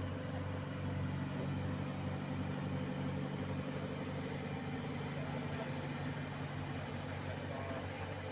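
Diesel engines of road-paving machinery running steadily, a constant low hum that does not change in pitch.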